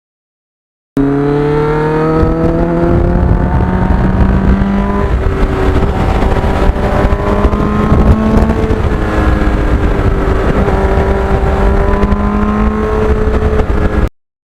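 Sport motorcycle engine under way, its pitch climbing and then stepping down with gear changes, over a low wind rumble. The sound cuts in about a second in and cuts off abruptly near the end.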